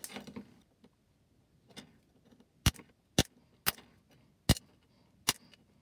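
Side cutters snipping the soldered Arduino Nano header-pin leads flush on the underside of a circuit board. The result is a string of sharp snips, one every half second to second, that begins about two seconds in.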